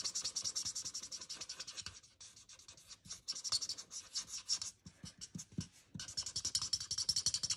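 Rapid scratchy strokes of a Stampin' Blends colour-lifter pen's bullet tip scribbling over cardstock, blending and lightening alcohol-marker colour. The strokes come in three quick runs with short, sparser pauses between.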